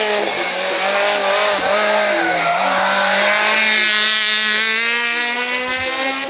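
Hillclimb race car's engine at high revs as it drives through a corner, its pitch climbing steadily over the last few seconds as it accelerates.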